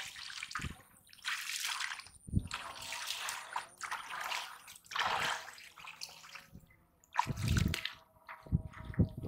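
Muddy pond water splashing and sloshing in several separate bursts as a PVC pipe is worked in and out of shallow mud, water pouring from the pipe. A deeper, heavier splash comes about seven seconds in.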